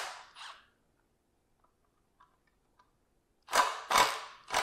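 Cordless impact wrench hammering in short trigger bursts on the 15 mm CV-joint bolts: sharp cracks about half a second apart, two near the start and three near the end, with a few faint clicks in the pause between.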